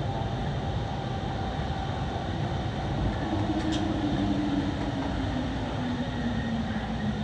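Rubber-tyred MP05 metro train on Paris Métro line 14 braking into a station: a constant rumble from the running gear under a motor whine that falls steadily in pitch as the train slows.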